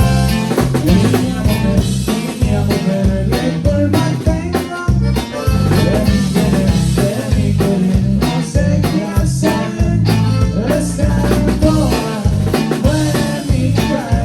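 A conjunto band playing live at a sound check, with drum kit and bass keeping a steady beat under the melody instruments, and some singing.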